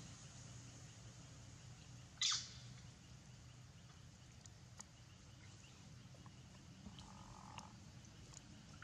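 A single short, high-pitched animal call sweeping downward, about two seconds in, over a faint steady background, with a few faint ticks later.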